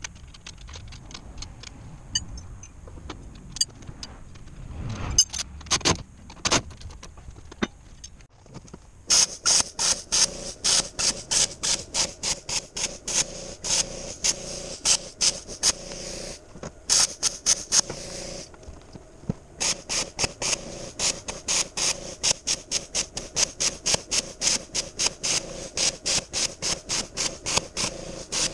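Fast, even back-and-forth rubbing strokes on a steel mesh grate, about three or four a second, each stroke giving a high squeak. Before that, a few scattered light clinks and knocks of tools.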